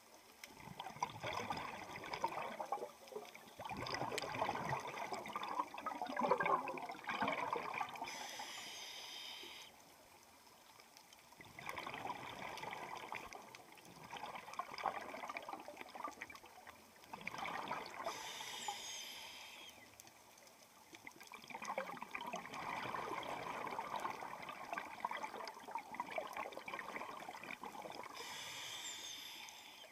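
Scuba diver breathing through a regulator underwater: long bubbling exhales alternating with short hissing inhales, three of each, about ten seconds per breath.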